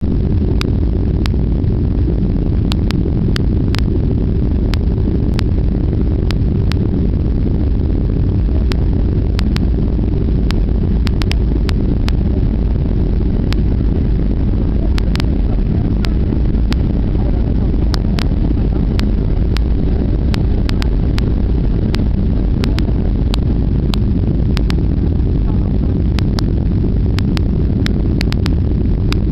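Cabin noise inside a Boeing 757-300 airliner on final approach: a steady, loud low rumble of the engines and airflow, with scattered small clicks.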